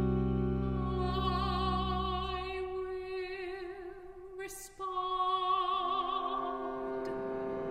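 Contemporary classical chamber music: a female voice sings long notes with wide vibrato over a low held tuba note that dies away about two and a half seconds in. A short hiss near the middle briefly breaks the line, then the singing resumes and a lower held note joins near the end.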